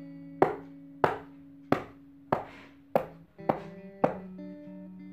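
A child's hands slapping a carpeted floor, seven slaps in an even rhythm, a little under two a second.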